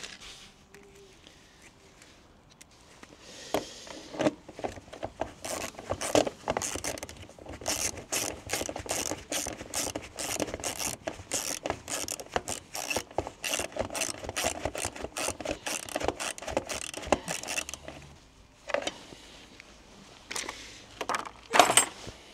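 Small metal parts and tools clinking and rattling as they are handled: a dense run of short light clicks and knocks starting a few seconds in and lasting about fifteen seconds, then a pause and a few louder clanks near the end.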